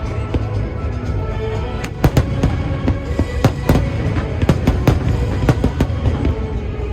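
Fireworks going off in quick succession, many sharp bangs and crackles. Music plays steadily underneath.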